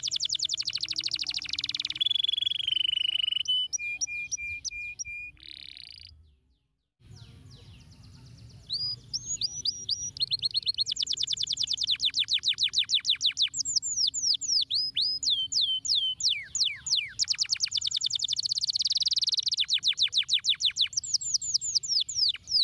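Domestic canary singing: fast rolling trills of rapidly repeated notes mixed with sweeping whistled slurs, broken by a short silent gap about a quarter of the way in before the song picks up again.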